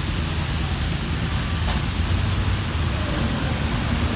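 Steady rushing splash of water from pond aerators spraying on the surface, with a low rumble underneath.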